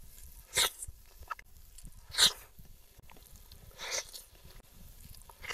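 Close-up mouth sounds of eating Padang rice with greens and Padang-style omelette by hand: short loud bites or crunches about every one and a half to two seconds, with faint chewing between.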